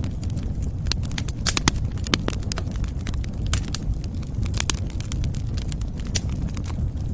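Fire in a fireplace crackling: irregular sharp pops and snaps, several a second, over a steady low rumble of burning.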